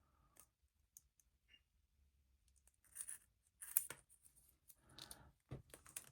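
Faint handling noises at a workbench: a few small clicks, then short scraping, rustling sounds from about three seconds in, as small drone wiring parts and heat-shrink tubing are handled.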